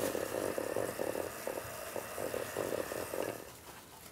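Electric hand mixer whisking egg whites in a stainless steel bowl: a steady, fast-pulsing whir that stops near the end.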